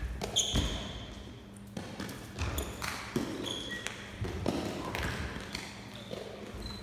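Trainers squeaking and feet thudding on a sports-hall floor during a shuttlecock-kicking (lábtoll-labda) rally, with dull knocks of the shuttlecock being kicked. The hall echoes a little.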